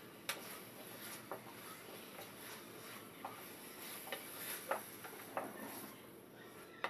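Wooden spatula stirring chicken and peas in a stainless steel pan: irregular knocks and scrapes against the pan, a few seconds apart, the sharpest right at the end, over a steady faint hiss.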